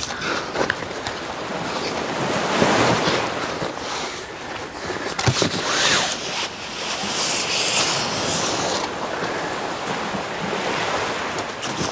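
Cardboard packaging rustling and scraping as a long cardboard box is opened and slid about by hand, with a sharp knock about five seconds in.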